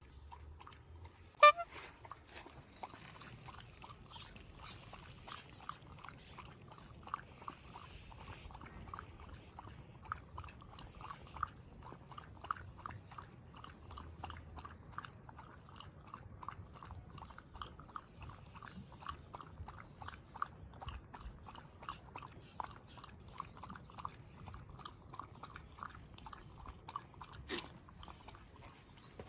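A Shiba Inu lapping water from a bowl, an even run of wet laps at about three a second. One sharp click comes about a second and a half in.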